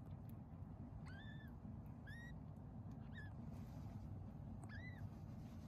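Newborn Persian kittens mewing while nursing: four short, thin, high-pitched mews, each rising and then falling in pitch, over a steady low rumble.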